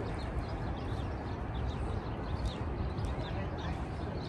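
Small birds chirping, many short high chirps in quick succession, over a steady low outdoor rumble.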